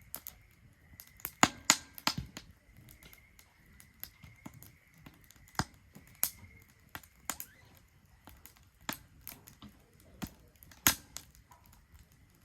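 Wood fire crackling in a Solo Stove Ranger fire pit: irregular sharp pops and snaps, a few louder ones, at a relaxed uneven pace.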